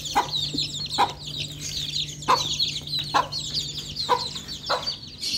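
A crowd of chicks peeping constantly in short, high, falling chirps as they feed, while a hen gives a lower cluck about once a second.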